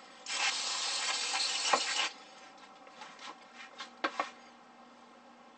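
Aerosol can of mass airflow sensor cleaner spraying in one steady hiss of about two seconds. A couple of light knocks follow about four seconds in as the can is set down on a plastic step stool.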